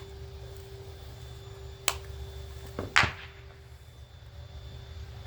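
Two sharp snaps about a second apart, the second louder, as a part is pulled and broken out of a refrigerator compressor's electrical box with pliers. A steady low hum runs underneath.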